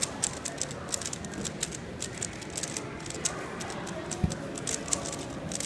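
3x3 speedcube being turned fast by hand: a quick, irregular clatter of plastic clicks as the layers turn, with a single low thump about four seconds in. Murmured chatter is underneath.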